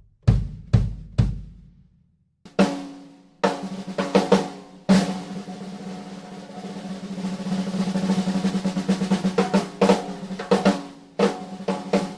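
Tama Starclassic Bubinga Elite drum kit being played in a sound check. Three low drum strokes come first, then after a short gap single drum hits. A snare roll starts about five seconds in and grows louder until about ten seconds in, then breaks into separate accented strokes.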